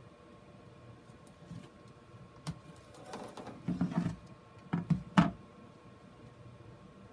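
A plastic grid mounting board holding a sphagnum moss ball is handled on a plastic storage box: a click, then rustling and scraping as it is lifted and tilted, then a few sharp plastic knocks as it is set back down, the loudest about five seconds in.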